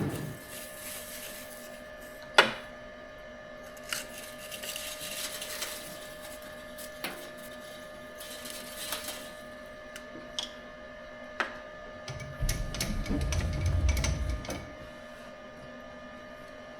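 A steady machine hum with scattered sharp clicks and knocks, typical of tools and parts being handled in a machine shop. A low rumble lasts about two seconds near the end.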